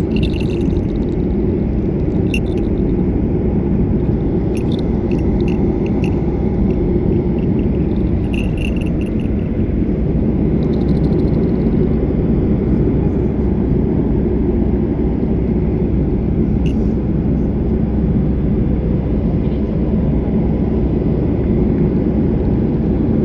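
Steady low rumble of a passenger airplane's cabin noise, engines and airflow heard from inside the cabin, with a few faint light clicks and jingles over it.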